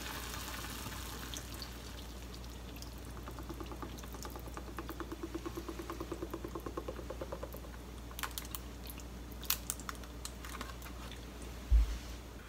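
Soy milk glugging out of a paper carton as it is poured into a pot of broth: a rapid gurgle of about five pulses a second that rises in pitch as the carton empties. A few light clicks follow, then a single dull thump near the end, the loudest sound.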